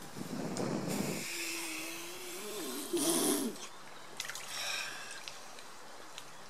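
A man wading waist-deep in lake water breathes out heavily, then lets out a drawn-out groan that wavers and ends in a loud gasp about three seconds in. Water sloshes and splashes around him afterwards.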